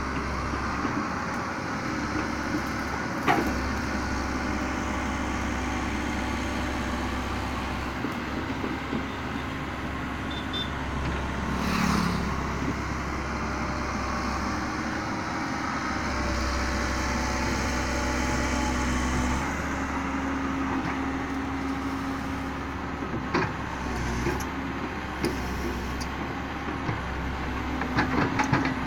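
Komatsu PC130 hydraulic excavator's diesel engine running steadily while it works its arm and bucket, with a few sharp knocks.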